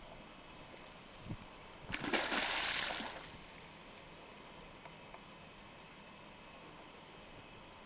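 A beaver splashing in the water, one loud splash about two seconds in lasting about a second as it ducks under the surface.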